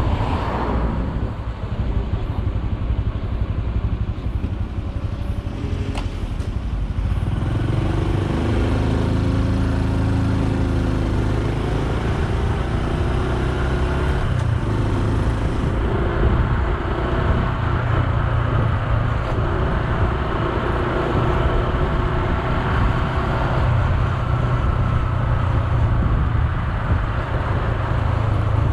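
Honda Super Cub C125's single-cylinder four-stroke engine running as the bike is ridden, with road and wind noise; from about eight seconds in the engine note rises and falls with the throttle. A brief click about six seconds in.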